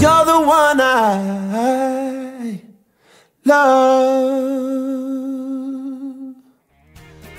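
A lone voice without accompaniment, in a song's closing notes: a wavering phrase, a short pause, then one long held note that fades out. Music with guitar starts again just before the end.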